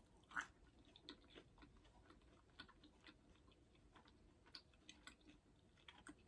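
Faint chewing of a plant-based meatball dipped in barbecue sauce: soft, scattered mouth clicks, with one slightly louder click just under half a second in.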